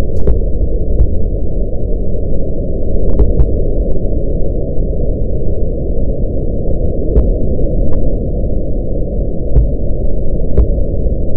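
A loud, steady low rumble with a few faint clicks scattered through it.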